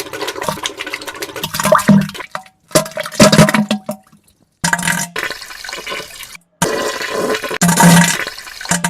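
A string of spliced diarrhea sound effects: wet, splashing, gushing noises into toilet water with short low farting tones, about four clips in a row, each cut off abruptly.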